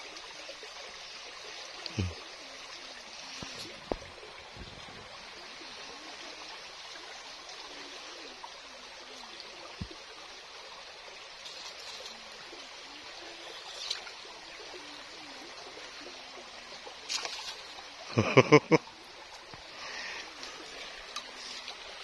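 Shallow, stony river flowing steadily: a continuous rush of running water, with a few faint knocks and a brief loud burst of sound about three-quarters of the way through.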